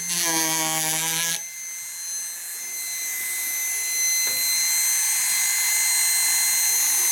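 Proxxon MSG electric carver with its chisel in wood, making a hard, evenly pitched buzz. About a second and a half in, the chisel is lifted clear and the carver runs free with a steady high whine.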